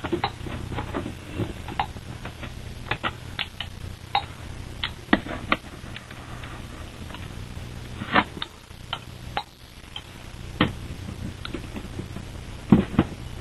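Handling noise: irregular clicks, taps and knocks as things are picked up and moved by hand close to the microphone, with a cluster of louder knocks near the end, over a steady low hum.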